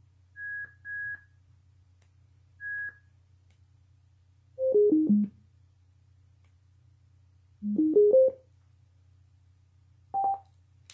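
NOVASAT Bluetooth speaker giving its electronic prompt tones as its button is pressed. First come three short high beeps. About halfway through it plays a falling four-note chime, a few seconds later a rising four-note chime, and near the end one single beep.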